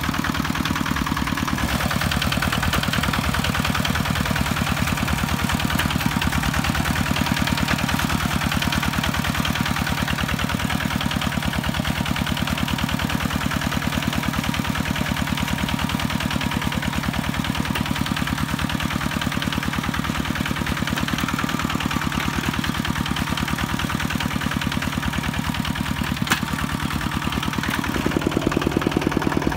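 Single-cylinder diesel engine of a two-wheel walking tractor chugging steadily while it works its cage wheels through a muddy rice paddy. It gets a little louder near the end.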